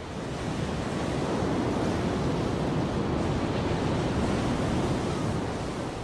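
Heavy surf breaking and washing over rocks: a steady, rushing roar of water that builds over the first second and eases slightly near the end.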